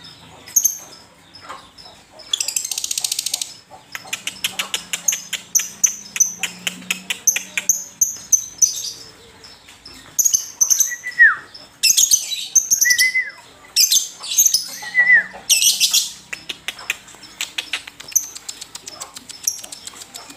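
Lovebird chattering nonstop: fast runs of sharp high chirps and clicks, with a couple of dense buzzy trills and a few short whistles that fall in pitch.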